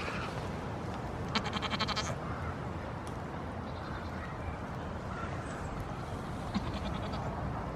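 A goat bleating: a quavering bleat about a second and a half in, and a shorter one near the end.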